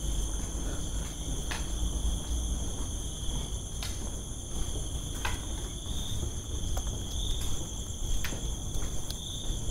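A steady, high-pitched chorus of crickets or other insects, with a few scattered sharp clicks.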